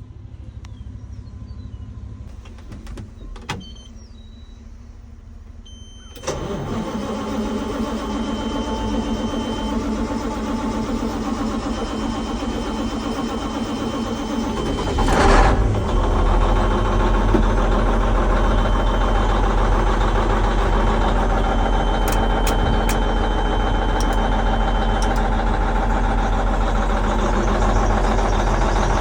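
Cummins N14 diesel engine of a Versatile 2360 tractor starting about six seconds in and running on, with a loud swell about fifteen seconds in, after which it runs louder and heavier. A thin high squeak from the belts comes and goes. The customer suspects a sticking or faulty injector.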